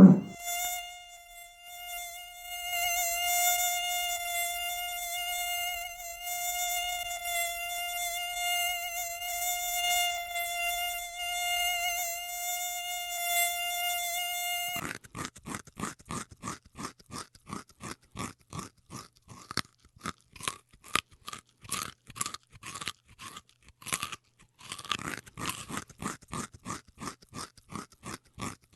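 A steady, high-pitched buzz like a flying insect's for about half the time. It switches abruptly to a rapid train of short clicking pulses, about three a second, which pause briefly near the end.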